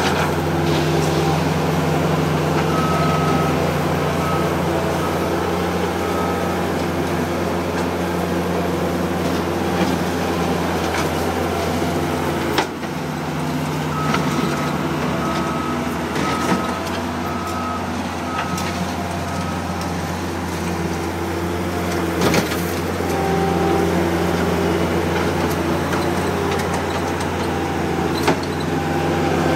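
Case 85XT skid steer loader's diesel engine running steadily at close range. In two spells a high backup-alarm beep sounds about every half second, and a few sharp knocks come through as the loader works the gravel.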